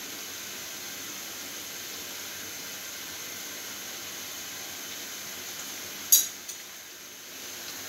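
Twisted potato samosas deep-frying in a pan of hot oil, a steady sizzle. A single sharp click about six seconds in, with a fainter one just after.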